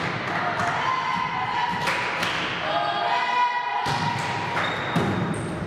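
Volleyball being struck and landing in a sports hall, several sharp thumps, over sustained high-pitched shouting and chanting from players and spectators.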